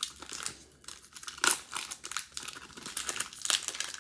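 A trading-card pack wrapper crinkling and tearing as it is opened by hand, with irregular crackles that are loudest about one and a half and three and a half seconds in.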